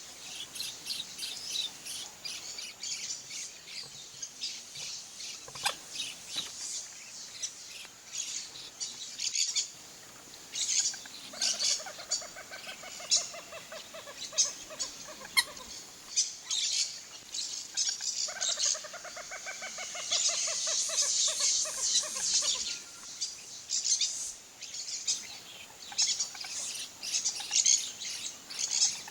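Birds calling: many short, high chirps throughout, with two long runs of rapid, lower cackling notes that fall slightly in pitch, about eleven and eighteen seconds in. A brief break in the sound comes about nine seconds in.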